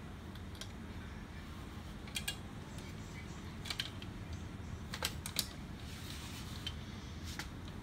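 Sharp clicks and knocks of a laser printer's fuser assembly, metal frame and plastic parts, as it is handled and pushed into its slot in an HP LaserJet P3015, coming in small clusters of two or three, over a steady low hum.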